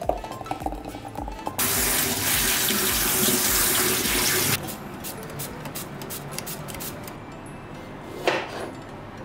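Kitchen tap running into a bowl of salad leaves for about three seconds, then cutting off abruptly. Near the end a kitchen knife cuts through a cherry tomato onto a wooden cutting board with a single knock. Soft background music with a low beat plays throughout.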